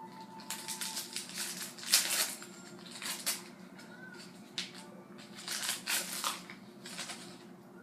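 Trading-card pack wrapper crinkling and rustling in irregular bursts as a hockey card pack is torn open and its cards handled, with the loudest crinkle about two seconds in.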